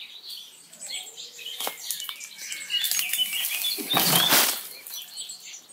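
Leafy stinging nettle stalks rustling and crackling as an armful is gathered and carried through dense undergrowth, loudest in a brushing swell about four seconds in. Faint bird chirps come through near the middle.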